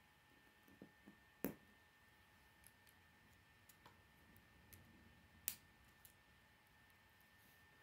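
K'nex plastic pieces clicking as they are snapped together by hand: two sharp snaps, about a second and a half in and again about five and a half seconds in, with lighter clicks and taps between.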